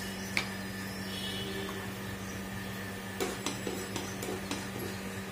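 Nigella seeds frying in a little hot oil in a nonstick pan, with a faint sizzle over the steady low hum of the induction cooktop. A few light clicks of a spatula against the pan come about three to four and a half seconds in.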